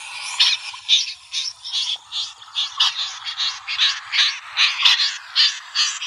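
Recorded snipe calls (the Vietnamese 'rẽ giun' bird), played as a lure: short scratchy calls repeated about two to three times a second.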